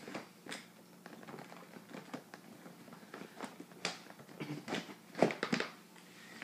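Hands handling plastic cases and medical supplies: scattered clicks, taps and rustles, the loudest a sharp knock about five seconds in.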